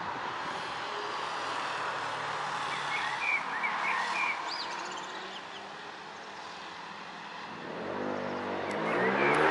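Short high chirps from a European robin in the middle, over steady traffic noise from the road. Near the end a vehicle approaches and passes on the road, growing loud and drowning out everything else.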